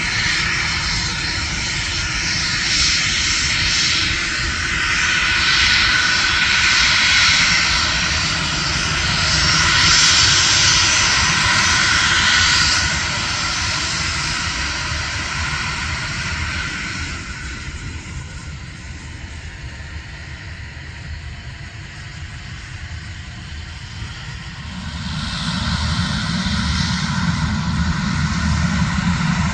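Twin Pratt & Whitney PW535E turbofans of an Embraer Phenom 300 running with a steady whine. The sound is loud at first, fades about halfway through, and swells again with more low rumble near the end.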